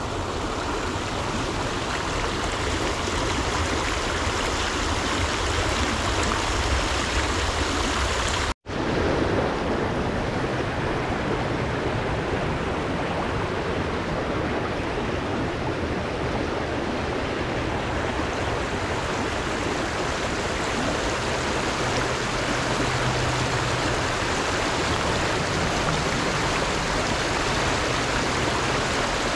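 Steady rush of flowing river water, with the sound cutting out for an instant about nine seconds in.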